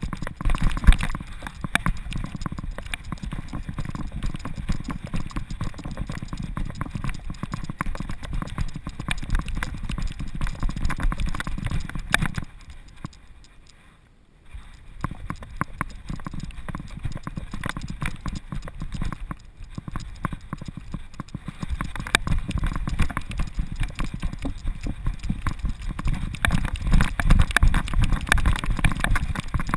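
Rhythmic thumping and jostling from a camera harness-mounted on a running American Staffordshire Terrier, jolted with each stride of the dog's paws on a dirt trail. The knocking drops away for about two seconds in the middle while the dog stands still, then picks up again and is heaviest near the end.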